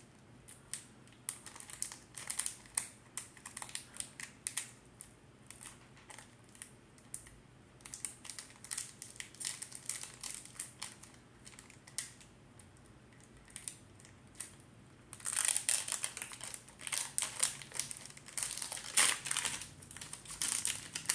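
Crinkling and rustling of a small Pokémon booster pack's wrapper being handled and torn open, with scattered light clicks. It grows denser and louder about fifteen seconds in.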